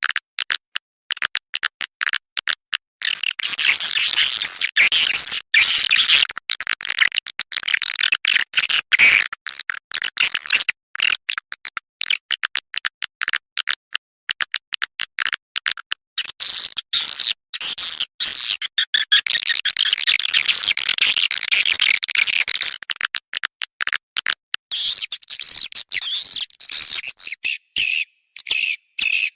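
Swiftlet lure call: a dense, high-pitched twittering of swiftlet chirps, chopped into rapid stuttering bursts with sharp gaps, thickest in long stretches and thinner in between. This is the kind of call played at swiftlet nesting houses to draw the birds in.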